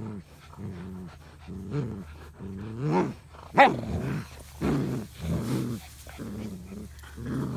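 Dogs growling in play during a tug-of-war over a rope toy: a string of short growls, about one a second, with a couple of louder, higher cries a few seconds in.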